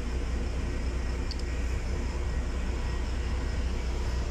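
Steady low engine hum inside a LiAZ 6213.22 articulated city bus, heard from the passenger cabin while the bus stands still at idle.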